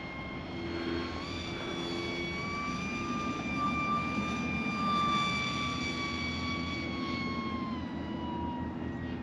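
Small battery-powered RC plane's electric motor and propeller whining high overhead in flight. The whine rises slightly in pitch about a second in, holds steady, then slides lower near the end.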